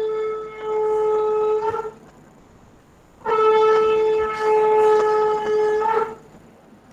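A horn sounds two long, steady blasts on one note, the first about two seconds and the second nearly three, with a gap of about a second and a half between them.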